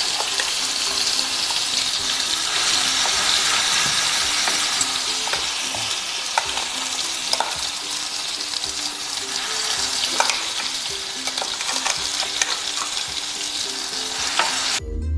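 Red chilli paste frying in hot ghee with cumin seeds, a steady sizzle with scattered sharp pops and ticks, stirred with a spoon in the pan. The sizzle cuts off suddenly near the end.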